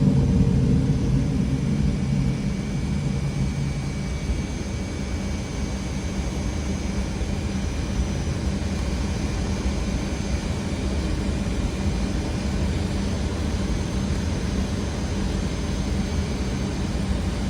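Cockpit noise of a Fokker 100 jet airliner in its initial climb after takeoff: a steady rush of airflow with a low hum underneath and a faint thin whine higher up, easing slightly over the first few seconds.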